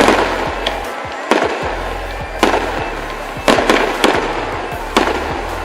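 Fireworks bursting with sharp bangs about once a second, each with a short echoing tail, over a steady low bass hum from party music.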